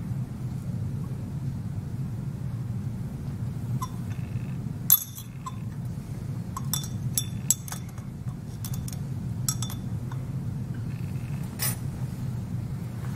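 Scattered light clinks of small metal lab items against a glass beaker and the bench, the sharpest about five seconds in, over a steady low hum.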